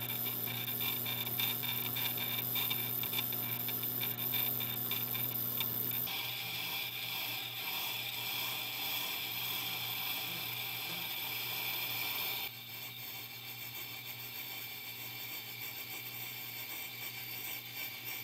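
Tormek T8 wet grinder running while its diamond truing tool is fed across the spinning water stone to flatten the unevenly worn stone: a steady motor hum under a scraping rasp. The rasp changes in tone about six seconds in and turns quieter about twelve seconds in.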